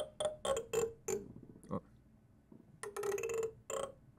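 Plastic comb played as an instrument, its teeth strummed with the fingers to pick out a tune. There is a quick run of about six short rasping strokes in the first second, then another cluster of strokes about three seconds in.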